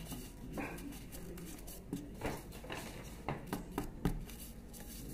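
Folded paper strips rustling and crackling as they are handled, a few short, scattered crinkles.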